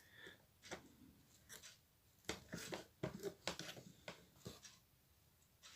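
Faint, scattered clicks and rustles of hands handling a Bluetooth speaker.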